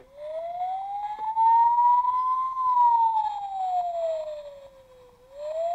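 DICKIE Toys fire engine's electronic siren sound effect from its small built-in speaker: one slow wail that rises for about two and a half seconds, falls back, and starts to rise again near the end.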